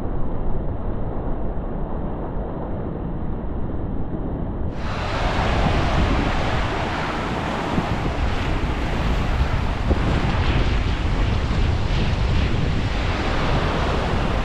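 Surf washing on a beach, with wind rumbling on the action-camera microphone; muffled for the first five seconds, then clearer and brighter.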